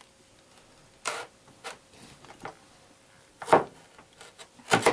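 A drinking glass pressed down through zucchini rings onto a plastic cutting board, with the rings handled between presses: a few separate short knocks and taps, the loudest about three and a half seconds in and a quick double knock near the end.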